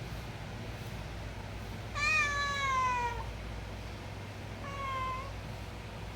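Domestic cat meowing twice: a long meow that falls in pitch, then a shorter one a couple of seconds later. These are the meows of a hungry cat asking for food.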